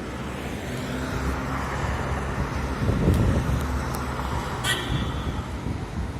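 A road vehicle passing by: its engine and tyre noise swell to their loudest about three seconds in, then fade away, with a few light clicks and a short sharp hiss near the end.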